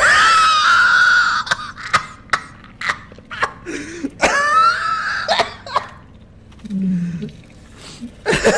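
A man's high-pitched, wheezing laughter, out of control, in several long fits broken by gasping breaths.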